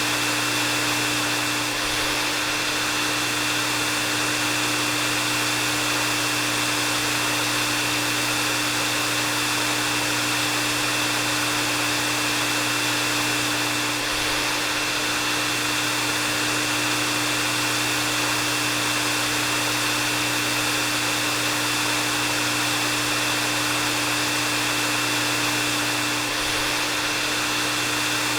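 Hair dryer running continuously: a steady blowing hiss with a constant low hum and a thin high whine, the level never changing.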